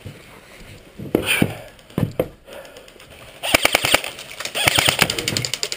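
Airsoft electric rifle firing on full auto: two bursts of rapid, evenly spaced clicking shots, about a dozen a second, starting about three and a half seconds in.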